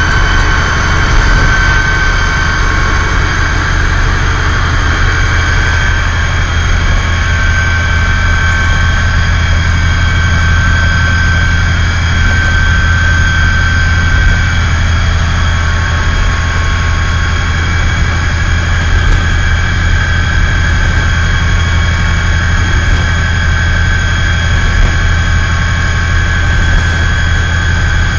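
2TE10M diesel locomotive's two-stroke diesel engine running under way, heard inside the cab: a steady heavy low drone with a high whine over it.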